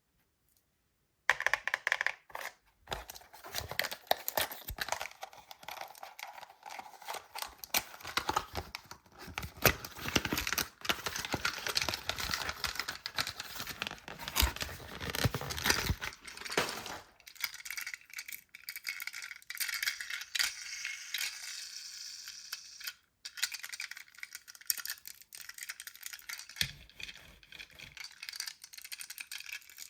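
Toy packaging being unwrapped by hand: wrapping crinkling and tearing, with small rattles and clicks. It starts about a second in, is densest for the first half, then goes on as a lighter crinkle.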